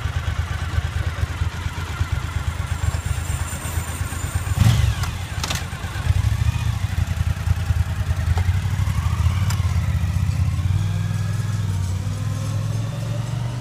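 Motorcycle engine idling with a steady, pulsing rumble, then changing pitch as the bike pulls away over the last few seconds. There is a short knock about four and a half seconds in.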